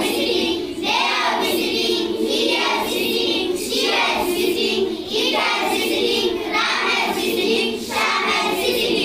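A group of children singing together in unison, in short repeated lines about every second and a half.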